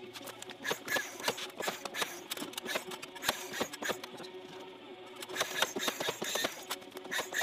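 Irregular clicks, knocks and crunches of outdoor carpentry work: footsteps on gravel and an aluminium stepladder being climbed, with a cordless nailer knocking against the shed siding.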